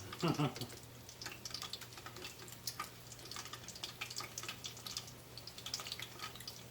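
Hot oil in a deep fryer crackling and popping irregularly as cold, pre-cooked vegetables fry, over a low steady hum.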